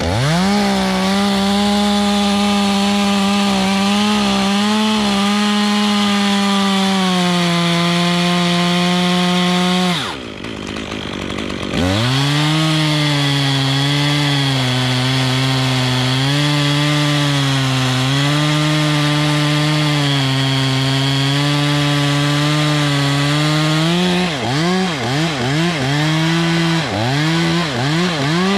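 Two-stroke chainsaw cutting through a sweet gum limb at full throttle, its pitch sagging and recovering as the chain bites. It drops off for about two seconds about a third of the way in, then runs back up to full throttle. Near the end it revs up and down in several quick blips.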